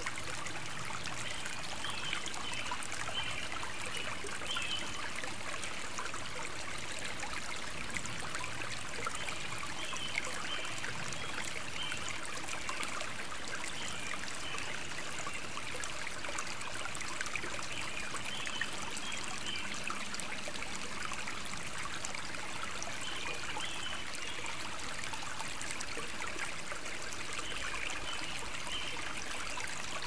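A shallow rivulet of water trickling steadily along a narrow muddy channel through grass, with a fine, constant burble of small splashes.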